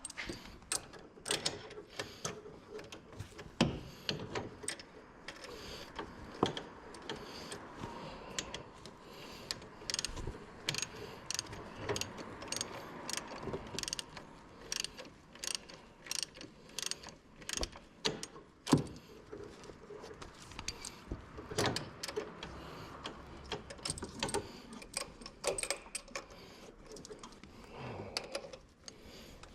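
Hand ratchet wrench clicking in short irregular runs, with sharp metal clinks of tools and fasteners, as bolts are worked loose or run down.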